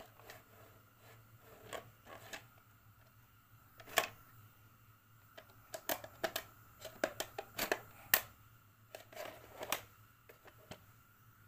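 Scattered plastic and metal clicks and knocks as a VHS cassette is pressed and handled in the open cassette carriage of a National NV-J1 VCR, with a quick run of sharp clicks in the middle. A faint steady hum runs underneath.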